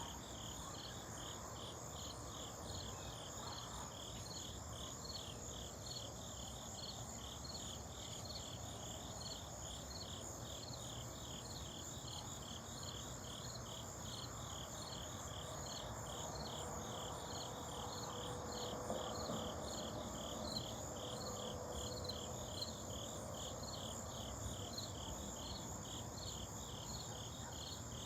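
Crickets and grasshoppers chirping in chorus: a pulsed chirp repeating about two to three times a second over a steady high-pitched trill.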